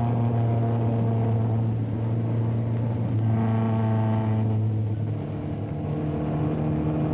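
Ford Mustang I concept car's 1.5-litre V4 engine running at steady speed under way, its note stepping up in pitch about five seconds in.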